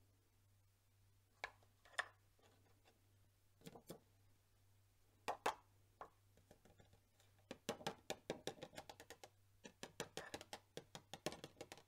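Faint light taps and clicks of a card and tool against a plastic tub, as excess clear embossing powder is knocked off the card. A few separate taps come first, then about a second past the middle a quick run of many small taps lasting about four seconds.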